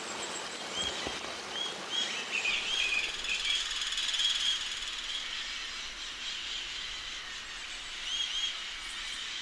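Wild forest birds calling: short, arched chirps repeating every second or so, with a denser trilling chatter from about two to five seconds in, over a steady background hiss of natural ambience.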